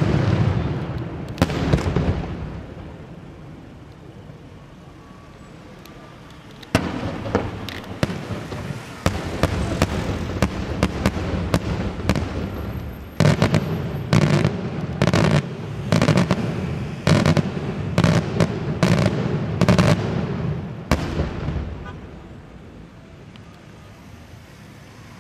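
Daytime aerial firework shells bursting with sharp, echoing bangs. A big bang opens, then there is a brief lull. From about seven seconds in comes a rapid string of bursts, densest in the middle, dying away near the end.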